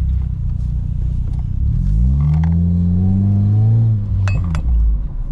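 Honda Civic engine through a Skunk2 Mega Power cat-back exhaust, accelerating: the exhaust note climbs about two seconds in, holds and rises slowly, then drops off as the throttle is lifted, followed by a few sharp exhaust pops.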